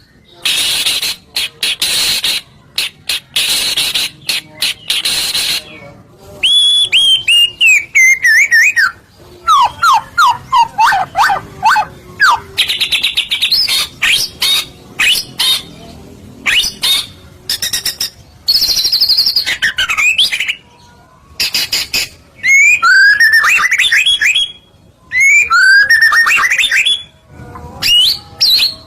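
White-rumped shama (murai batu) in full, vigorous song. Loud, varied phrases with short pauses between them: harsh rapid chattering at first, then clear falling whistles and a quick run of slurred notes, with more whistled phrases near the end.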